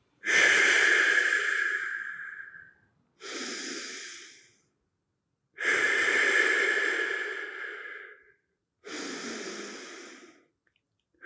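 A man's slow, deep, controlled breathing while holding a stretch: four breaths with short silent gaps between them. The first and third are long and loud, and the second and fourth are shorter and quieter.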